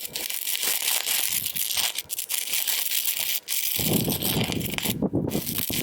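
Electric welding arc crackling and sizzling steadily, the sound growing fuller and lower about four seconds in.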